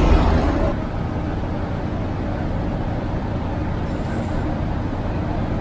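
Street traffic: a motor vehicle passes in the first second, and after it a steady road-traffic noise.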